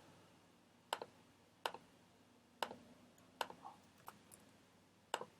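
Faint, separate sharp clicks of a computer's keys and mouse, about six of them spaced roughly a second apart, while working at a desk computer.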